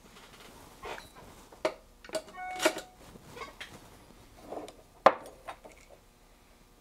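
Handling noises at a metal bench vise: scattered light knocks and metallic clinks, one with a brief ring about two and a half seconds in, and a sharp click about five seconds in, the loudest.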